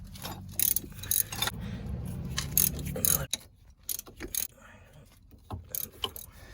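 Hand ratchet clicking and clanking on its socket as the 15 mm hub-assembly mounting bolts are broken loose, in irregular clicks. A low hum underneath cuts off about three seconds in.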